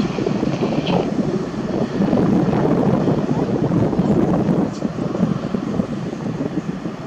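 Boeing 737-800's twin CFM56-7B turbofan engines running as the airliner lines up and starts its takeoff run, a steady rumble that eases slightly about two-thirds of the way through as the jet moves away.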